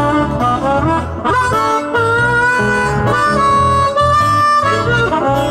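Blues harmonica playing a fill, bending notes and then holding one long note a little past the middle, over strummed acoustic guitars and an electric bass.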